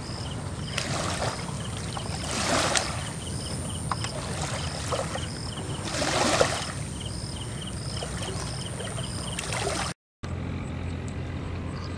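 Rush of a swollen, flooding river with a steady low rumble, swelling twice, and regularly repeated high chirps over it; the sound cuts out for a moment near the end.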